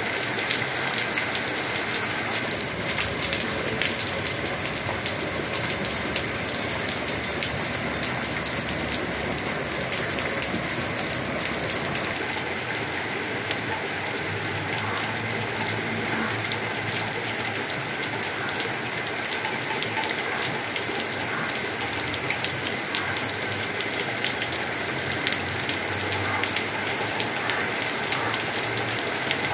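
Heavy rain pouring steadily: a dense hiss of falling rain with many sharp, close drop ticks.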